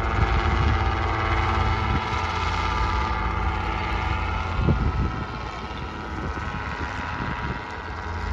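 Small light helicopter flying overhead, a steady engine-and-rotor drone with several held tones that grows a little fainter from about halfway through.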